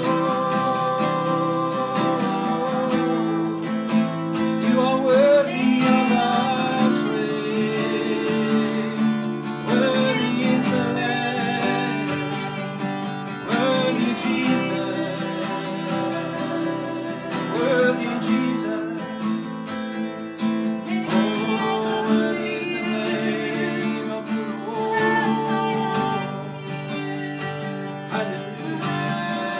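Acoustic guitar strummed in steady chords, with a man's voice singing along softly in places.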